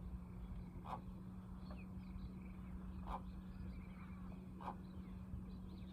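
Steady low hum of a boat's trolling motor, with a few short sharp sounds a second or two apart over it.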